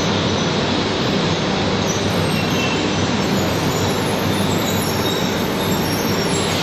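200 series Shinkansen train rolling slowly past as it comes in to stop, a steady even rumble and hiss of wheels on rail.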